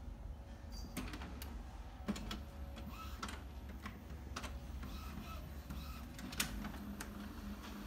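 Home printer printing and feeding a sheet of paper out: irregular clicks and mechanical whirring from its paper feed and print mechanism over a low steady hum.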